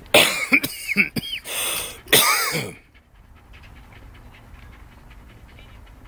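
A run of loud, hacking coughs very close to the microphone, several bursts in quick succession over about three seconds.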